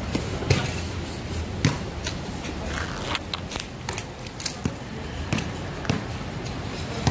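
A dozen or so sharp clicks and snaps at irregular intervals, the loudest about half a second and a second and a half in, over a steady low hum.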